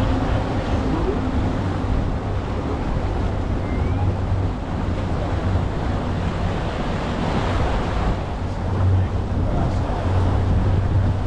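Twin Mercury V10 350 Verado outboards running at low speed, a steady low hum, under the wash of water along the hull and wind buffeting the microphone.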